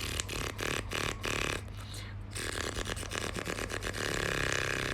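A person imitating with the mouth a car starter cranking on a weak, dying battery: a run of quick stuttering pulses, then a longer vibrating buzz from about two and a half seconds in.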